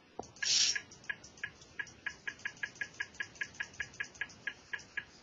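A short hiss about half a second in, then a steady run of sharp, evenly spaced computer clicks, about four a second, as the moves of a chess game are stepped through on screen.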